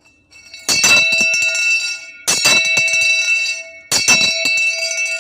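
A metallic bell-like chime struck three times, about a second and a half apart, each strike ringing on and fading.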